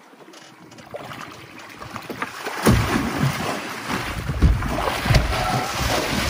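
Large hooked shark thrashing at the surface against a boat's side, throwing water in heavy splashes. The splashing starts suddenly about two and a half seconds in, with repeated hard smacks of water.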